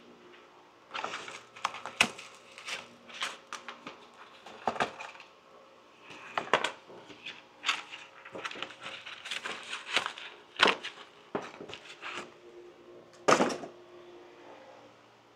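Hands working at a workbench, handling and pulling apart a small foam RC plane: a busy run of irregular clicks, knocks and crackles, with the sharpest cracks about two seconds in, around ten seconds and near the end.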